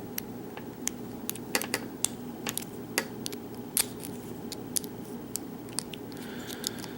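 Small irregular metallic clicks and taps from circlip pliers working the retaining clip off the back of a lock cylinder, over a steady low hum.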